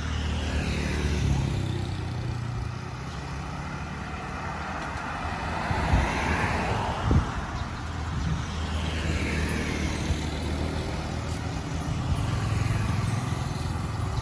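Road traffic passing close by: vehicle engines humming and swelling as they go past. About halfway through come two short knocks about a second apart.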